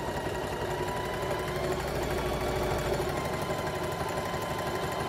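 Singer electric sewing machine running steadily, stitching a coiled fabric-strip rug: a fast, even needle rhythm under a steady motor whine.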